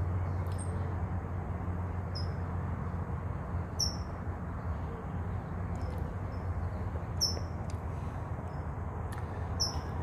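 Short, high-pitched bird chirps, one every second or two, over a steady low background hum.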